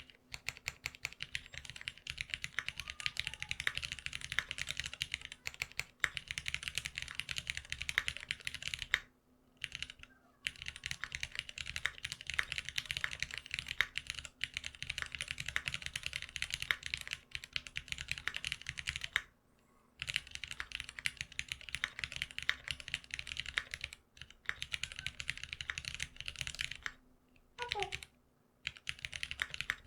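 Fast typing on a GeonWorks F1-8X custom mechanical keyboard with lubed Cherry Black linear switches, in long runs of rapid keystrokes broken by short pauses about nine seconds in, around twenty seconds in, and near the end.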